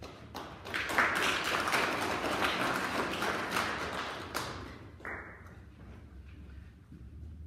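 An audience applauding: the clapping swells about a second in and dies away around four and a half seconds in. A single short, sharp sound rings briefly about five seconds in.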